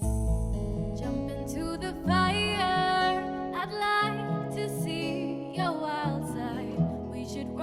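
Background music: an instrumental-sounding song with a steady bass line changing note every second or so and a gliding melodic lead over it.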